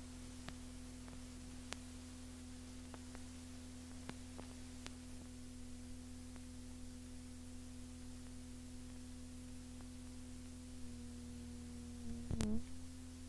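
Faint steady hum and hiss from a cassette tape's blank stretch between songs, with a few scattered faint clicks. A short cluster of clunks about twelve seconds in briefly bends the hum.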